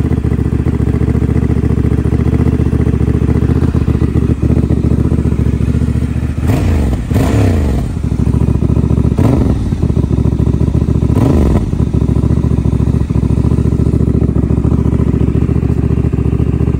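Honda Transalp XL750's parallel-twin engine running through its stock muffler with the spark arrestor removed, the louder, more open exhaust note of the uncorked can. It idles steadily and is revved three times in the middle, each rev rising and falling back to idle.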